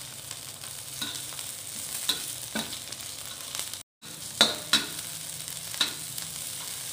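Onion, ground chilli paste and sliced red chillies sizzling in oil in a wok, with a metal spatula scraping and tapping against the pan as it stirs them. The sound cuts out for a moment about four seconds in.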